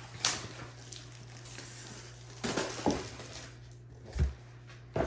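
Diamond-painting kit packaging being handled: short rustles of paper and cardboard, then a dull thump about four seconds in as something is set down on the wooden table.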